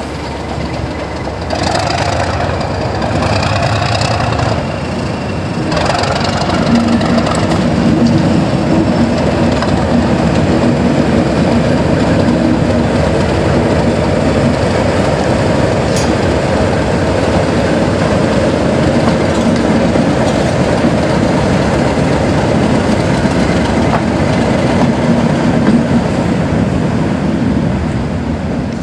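Class 37 diesel-electric locomotive moving slowly past, its English Electric V12 diesel engine running steadily under load, with a high squeal from the wheels in the first few seconds.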